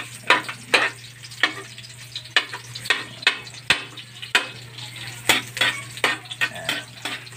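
Garlic frying in hot oil in a steel wok, stirred with a spatula. The spatula scrapes and taps against the pan about twice a second at an uneven pace, over a light sizzle and a steady low hum.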